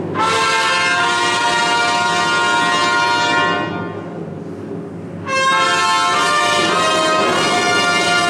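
Brass fanfare of long held chords, played for the morning unveiling of the icon: the first chord dies away about three and a half seconds in, ringing on in the hall, and a new loud chord comes in at about five seconds.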